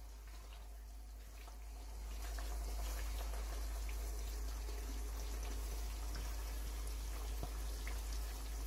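Pieces of soaked salt cod bubbling and lightly crackling in a pan of olive oil over low heat, growing louder about two seconds in, as the fish poaches and its gelatin starts clouding the oil into pil-pil sauce. A steady low hum runs underneath.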